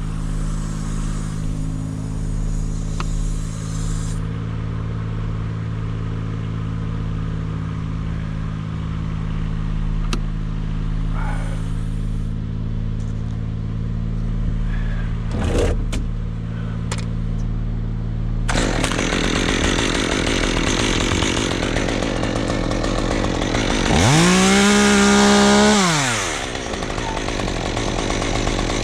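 An engine idles steadily throughout. About two-thirds of the way in, a chainsaw comes in running at idle. Near the end it is revved hard once for about two seconds, its pitch rising and then falling back to idle.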